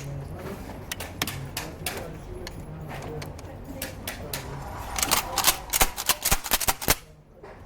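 Kel-Tec KSG 12-gauge shotgun being loaded and handled: sharp plastic-and-metal clicks as shells are pushed into its magazine tubes, sparse at first, then a quick cluster of clicks about five seconds in.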